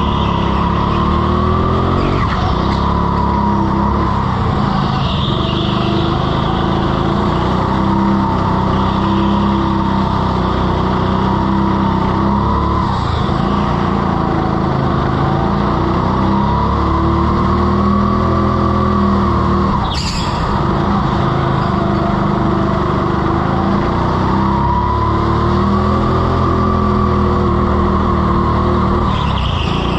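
Go-kart engine running hard at an onboard position, its note rising and falling as the kart accelerates and lifts through the corners, with tyres squealing now and then on the slippery floor. A sharp knock about two-thirds of the way through.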